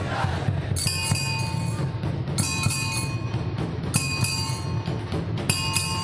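Puneri dhol-tasha ensemble playing: massed dhol drums beat a dense, driving rhythm, and from about a second in a metallic clashing rings out in repeated phrases, each about every one and a half seconds.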